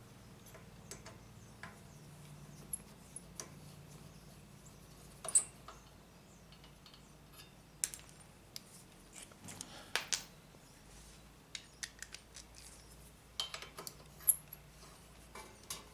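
Sparse light clicks and metallic taps of hand work on a mower, parts and tools being handled, with a few sharper clinks about five and ten seconds in, over a faint low hum.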